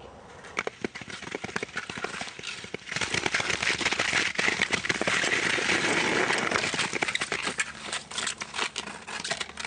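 Footsteps crunching through snow on lake ice, an irregular run of short crackles, becoming a denser, steady crunching and rustling from about three seconds in.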